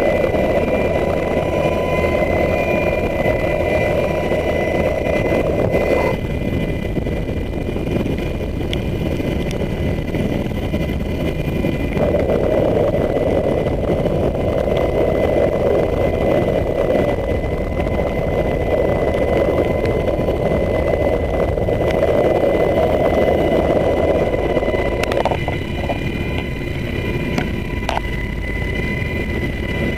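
HH-60 Pave Hawk helicopter's turbine engines and rotor running steadily in a hover, heard through the open cabin door, with a steady high whine over the rushing noise. A lower rushing part of the noise drops out for a while about six seconds in and again near the end.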